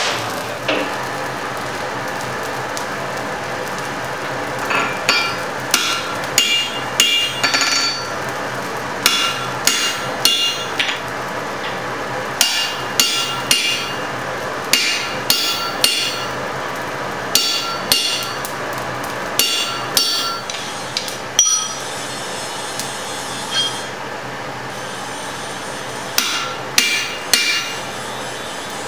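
Blacksmith's hammer blows on red-hot steel at the anvil: a regular run of ringing metallic strikes, about two a second. The strikes pause for a few seconds, then a few more blows come near the end.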